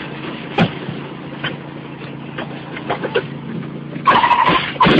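Riding lawn mower engine running steadily while it tows a wagon, with scattered knocks and rattles from the ride over rough ground, and a loud burst of noise about four seconds in.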